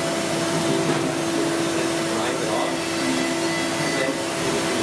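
Milling machine running, its spindle and end mill working over small parts in a fixture: a steady whine over steady machine noise.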